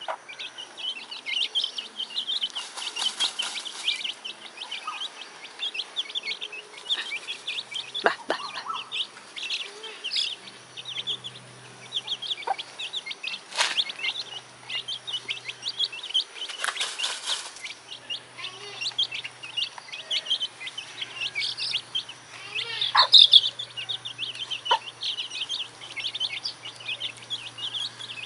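Domestic chicken chicks peeping continuously in a crowd of short, high chirps, with a mother hen clucking softly among them and a couple of short rustles.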